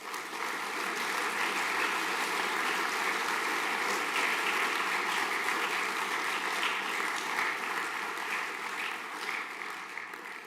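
A large audience of students applauding, a dense steady clapping that swells in right away and dies away near the end.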